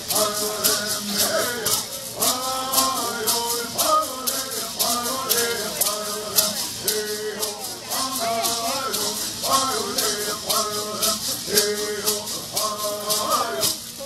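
Voices singing a Mohave bird song over gourd rattles shaken in a steady, quick beat.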